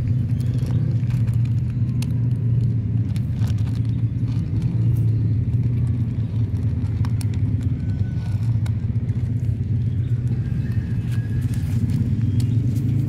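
A steady low rumble, with faint scattered clicks over it.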